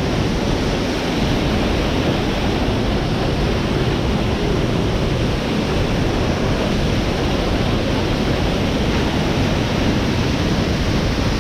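Steady rush of river water pouring and churning through the Punch Bowl, a narrow rock gorge where the falling water swirls in eroded pools.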